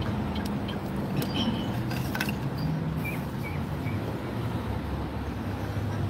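Steady rush and hiss of a musical fountain's water jets spraying and falling into the pool, with a few faint clicks about a second or two in.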